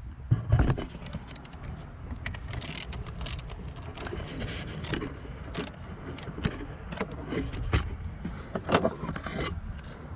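Metal hand tools clicking, clinking and scraping as a 7 mm socket wrench works the ignition coil bolt loose, in irregular sharp clicks with a couple of louder knocks about half a second in.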